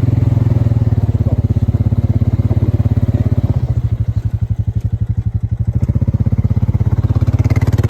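A small vehicle engine idling with a steady, rapid pulse. It eases off a little a few seconds in and picks up again near the end.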